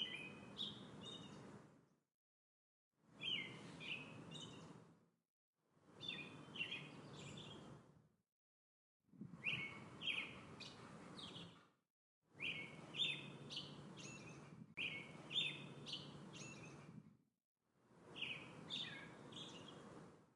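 A songbird's short chirping phrase, about two seconds long, repeats roughly every three seconds with dead silence between. Each phrase fades in and out over a faint low rumble, like a recorded snippet played on a loop.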